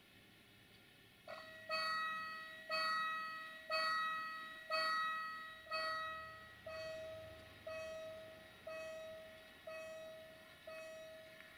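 Railway level crossing warning bell ringing, starting about a second in with a steady beat of about one strike a second, each strike ringing out and decaying; the later strikes are softer. The crossing has been activated for an approaching train.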